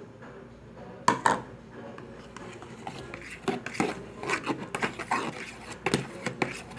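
A utensil clinking and scraping against a bowl as glitter glue and liquid starch are mixed into slime: a sharp knock about a second in, then quick irregular knocks from about halfway through.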